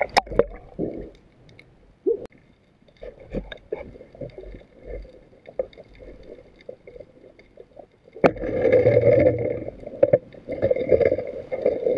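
Muffled water sloshing and gurgling around the camera, with a few sharp knocks, one near the start and one about two seconds in. The water noise gets much louder from about eight seconds in.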